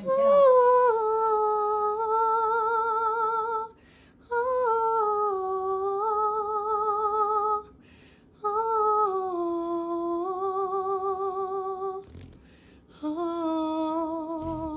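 A woman's voice singing wordless held notes with strong, even vibrato, in four long phrases with short breaths between them, each phrase pitched a little lower than the last.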